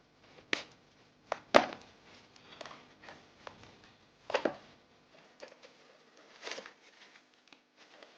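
Packaging of a gaming keyboard being handled during an unboxing: scattered sharp clicks and crackles of plastic and cardboard, with soft rustling between them.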